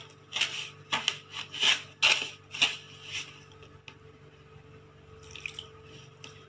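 White plastic spatula scraping and turning dampened semolina in a plastic mixing bowl, a quick series of short scrapes over the first three seconds, then only a few light strokes.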